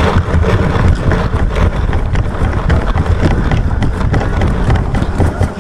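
Wind and handling rumble on the microphone of a camera mounted on a paintball marker, with scattered sharp pops of paintball markers firing across the field.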